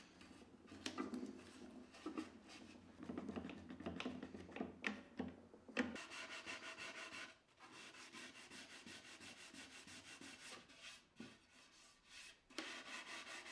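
Gloved hand rubbing back and forth over the edge of an oak-veneered dresser: dry, scratchy strokes on wood, irregular at first, then quick and even from about six seconds in.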